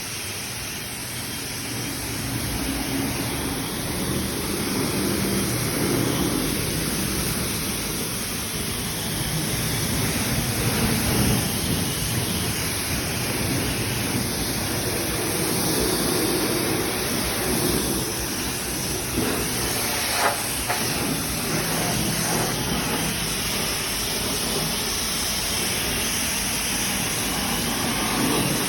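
High-pressure rinse water spraying from a wash wand onto a motorcycle, a steady hissing spray.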